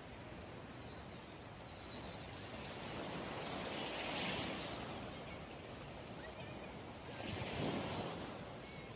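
Sea waves breaking on the shore, the surf swelling twice: about four seconds in and again near the end.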